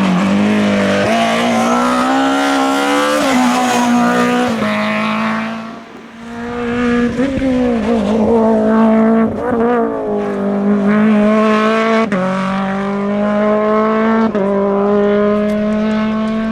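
Competition car engine at high revs under full throttle, pulling hard up a hill-climb course. Its pitch climbs and then drops sharply at each of several gear changes, with a short fall in loudness near the middle.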